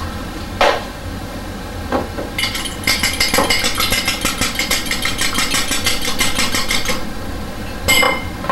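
An egg being beaten in a small glass: quick, even clinking of a utensil against the glass for about four seconds, with a single sharper knock near the start and another near the end.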